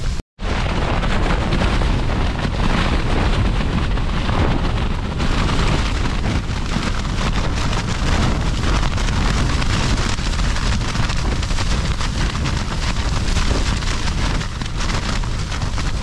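Storm-force wind battering a small tent: the flysheet flapping and rattling without pause over a deep, loud rumble of gusts. It cuts in abruptly after a split-second gap.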